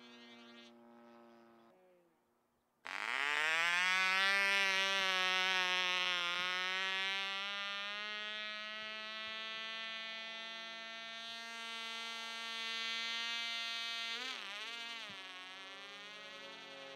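Tiny .049 two-stroke model engine buzzing at a high pitch with its propeller. It is faint and fading at first, then after a moment of near silence it cuts in loud about three seconds in, rising briefly in pitch before holding steady. Near the end its pitch wavers quickly.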